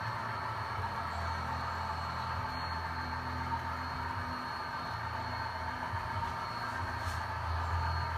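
HO scale model freight cars rolling steadily past on the layout track: a continuous running rumble with a low hum and no break.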